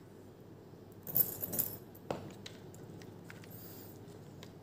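Light handling of small blaster gearbox parts: a short rattle about a second in and a sharp click about two seconds in, followed by a few faint ticks.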